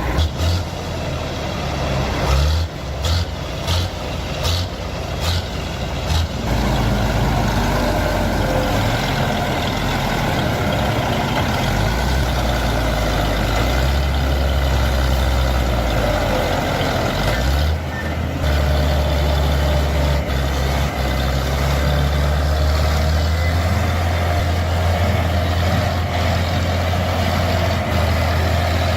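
Heavy vehicle engine working under load, a loud low drone whose pitch and level shift as it pulls, dipping briefly about eighteen seconds in before picking up again. A few short knocks come in the first six seconds.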